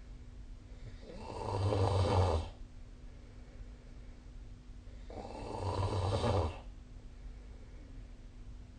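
A person snoring in their sleep: two long snores about four seconds apart, each building up over a second or so and stopping abruptly, with quiet stretches between.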